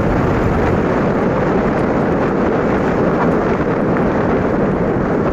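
Steady wind noise buffeting the microphone of a camera riding on a moving bicycle.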